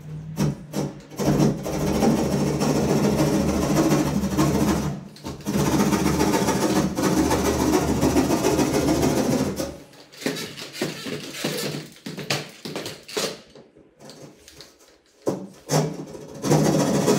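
A handheld electric power tool running against a gypsum-board ceiling in a long steady stretch, stopping about ten seconds in. Short scattered knocks follow, and the tool starts again near the end.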